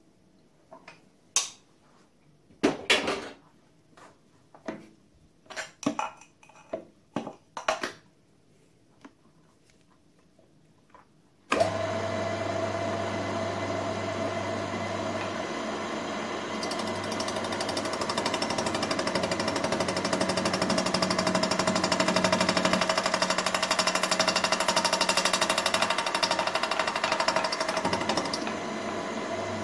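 Several sharp knocks and clicks as a face mill is fitted to a milling machine's spindle, then about a third of the way in the mill's motor starts suddenly and runs with a steady tone and hum. From about halfway a harsher, brighter noise builds as the face mill cuts across a cast iron exhaust manifold flange, dropping away shortly before the end.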